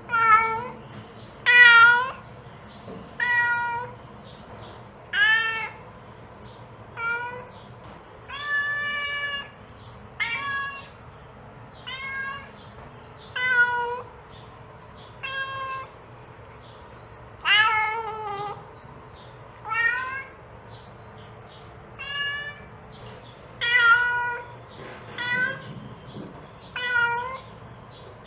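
Mother cat calling her kittens with a steady series of meows, about one every two seconds, each call bending up and down in pitch and one drawn out longer.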